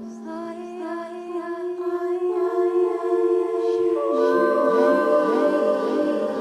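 Layered wordless voices sustaining long notes in a cappella harmony, with more voices entering about four seconds in and sliding up and down in pitch.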